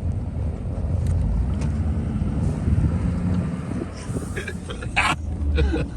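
Pickup truck driving slowly through deep snow: a steady low engine and tyre rumble, with wind buffeting the microphone through the open window. A short, sharp noise breaks in about five seconds in.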